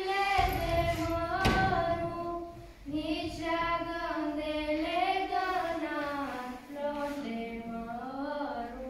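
Group of children and young people singing a Romanian Christmas carol (colind) together, unaccompanied, with held melodic notes and a short pause for breath about three seconds in.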